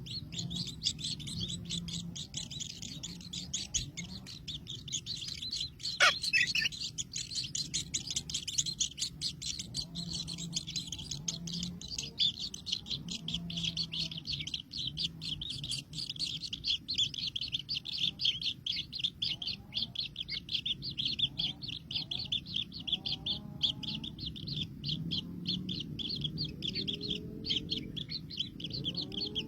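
Many baby birds chirping rapidly and without pause as they feed, with a sharp click about six seconds in.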